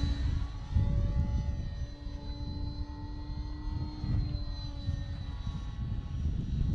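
Electric motor and propeller of a Flite Test P-51D Mustang foam RC plane flying overhead: a steady whine whose pitch shifts a little as the plane turns. Wind rumbles on the microphone underneath.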